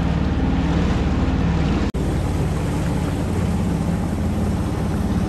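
Motorboat engine running steadily under way, a low throbbing hum over a rush of water and air noise. It breaks off for an instant about two seconds in.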